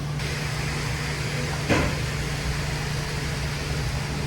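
Steady low mechanical hum, like an electric motor or fan running, with a single short knock a little under two seconds in.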